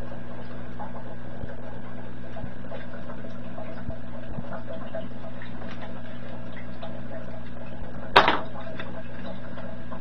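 Steady electrical hum with its overtones over a background hiss, with a few faint ticks of small parts being handled and one sharp click a little past eight seconds in.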